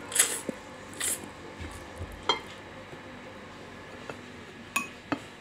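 Instant noodles being slurped into the mouth: two short slurps in the first second or so, then a few faint clicks while chewing.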